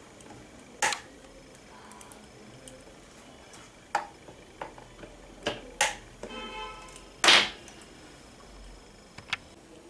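Side cutters snipping off the excess leads of a through-hole capacitor soldered into a motherboard. There are several sharp clicks, the loudest about seven seconds in.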